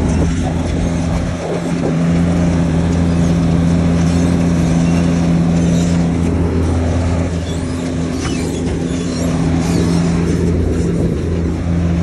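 Tracked asphalt paver's diesel engine running steadily at a constant speed, a loud, even low drone.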